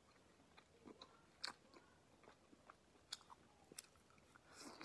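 Faint close-up mouth sounds of eating: soft, wet chewing clicks and smacks scattered through, with a brief breathy rustle near the end.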